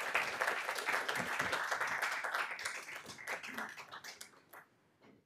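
Audience applauding, thinning to a few last claps and stopping about a second before the end.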